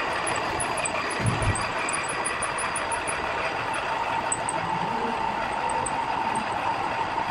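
Pillar drilling machine cutting into a steel disc: a steady machining whir with a constant tone near 1 kHz. A single low thump just over a second in.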